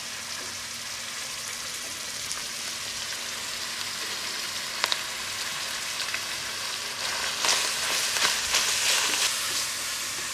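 Ground beef and Italian sausage links sizzling in hot oil in a stainless steel pan, a steady hiss as the meat just starts to cook. A sharp tick comes about five seconds in, and from about seven and a half seconds the sizzling turns louder and choppier as the meat is broken up and stirred in the pan.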